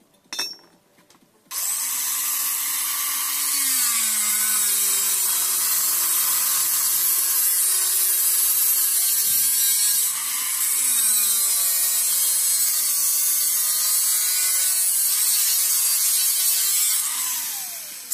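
Angle grinder with a cutting disc slicing through steel angle: a loud, harsh grinding hiss over the motor's whine, whose pitch sags and rises as the disc bites. It starts about a second and a half in, eases briefly near ten seconds, and near the end the motor winds down with a falling whine.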